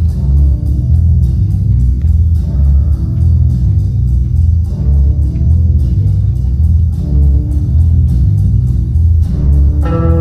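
Instrumental music with a steady, pulsing bass and held chords; a new, higher held chord comes in near the end.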